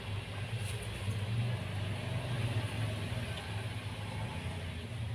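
A steady low hum, with a few faint clicks from wires being handled.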